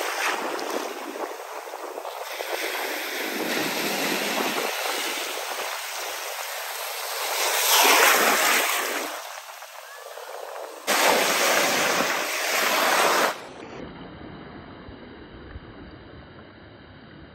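Ocean surf washing onto the beach, swelling to its loudest about eight seconds in, then cutting off abruptly a few seconds before the end and leaving only a faint hiss.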